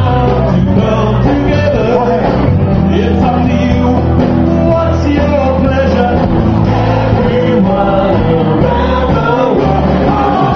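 A live band playing a song with a singer, over a steady, prominent bass line.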